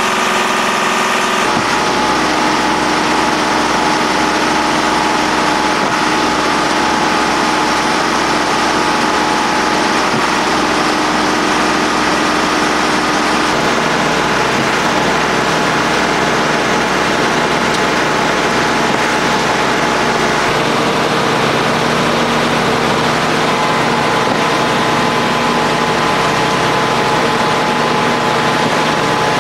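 Heavy construction machinery on a piling site running steadily, a diesel engine hum with a mechanical hiss. Its pitch shifts about a second and a half in and again near two-thirds of the way through.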